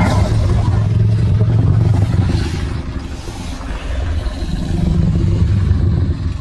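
Stock dinosaur sound effect: a long, low, rattling growl that swells twice, dips in the middle and starts to fade near the end.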